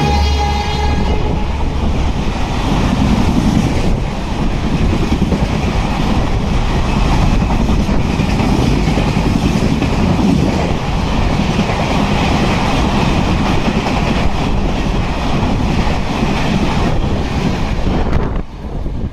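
Express train coaches running past at speed, their wheels clattering on the rails in a loud, steady rush. The WAP-7 electric locomotive's horn ends about a second in, and the train noise drops away sharply near the end.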